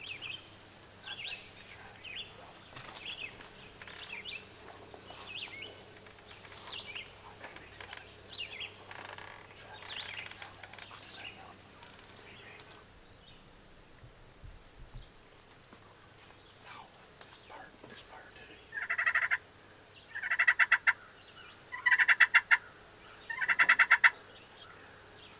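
Wild turkey gobbling four times in quick succession near the end, each gobble a loud rapid rattle about a second long. Before that, scattered short songbird chirps.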